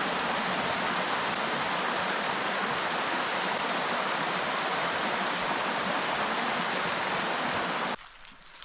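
Steady rushing of a trout stream's flowing water, which cuts off suddenly near the end.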